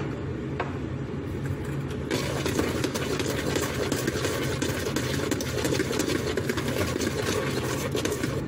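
Electric hand mixer running, its beaters whisking milk powder into an egg, sugar and oil batter in a bowl; the beating gets louder and busier about two seconds in.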